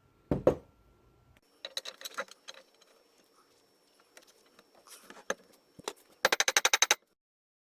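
Metal knocks and clinks of hand tools working on a driveshaft universal joint and yoke: one sharp knock, scattered taps and clicks, then a quick even run of about a dozen sharp clicks that cuts off abruptly.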